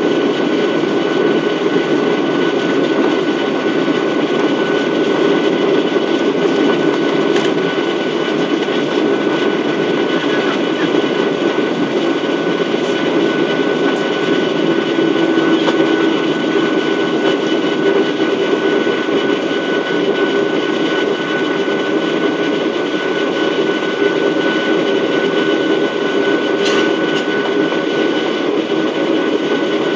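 Steady cabin noise of a Boeing 737-800 in motion: the drone of its CFM56 turbofan engines and rushing air, even in level throughout, with steady whining tones over a low rumble. A brief click sounds near the end.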